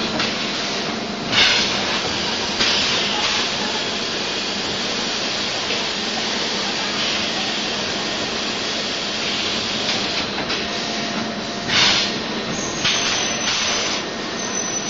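DKW12T six-head extrusion blow molding machine running with a steady mechanical noise, broken by short bursts of compressed-air hiss every few seconds. The loudest bursts come about a second and a half in and about twelve seconds in.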